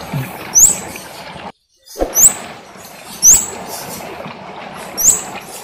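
Kemade bird calling: a short, high, thin whistle that sweeps up and holds briefly, repeated four times about a second or two apart. The sound drops out completely for a moment about one and a half seconds in.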